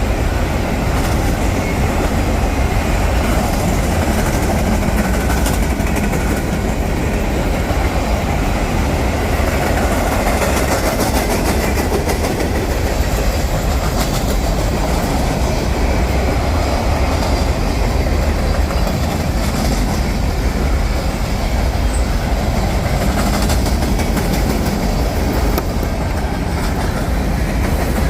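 Union Pacific train rolling past, its railcars going by steadily with wheels clacking on the rails.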